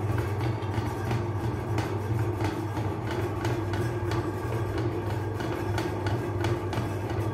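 Electric meat grinder running with a steady low motor hum and frequent irregular clicks and rattles from the machine.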